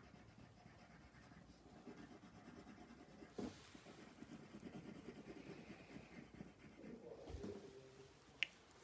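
Faint scratching of a colored pencil shading on paper, in quick irregular strokes. There is a light knock about three and a half seconds in and a short sharp tick near the end.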